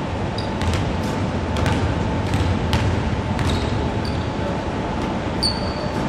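Basketballs bouncing on a hardwood gym floor: irregular thuds, roughly two a second, echoing in a large hall. A few short, high shoe squeaks come in, one about half a second in and others near the end.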